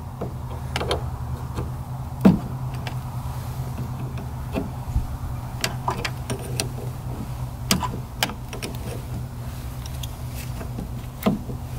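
Hand wrench working a battery terminal clamp: irregular metallic clicks and taps, with one louder knock a couple of seconds in, over a steady low hum.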